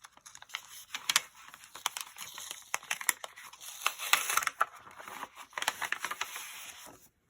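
Crinkly paper wrapping being torn and crumpled open by hand: a dense run of crackles, rustles and sharp snaps that stops shortly before the end.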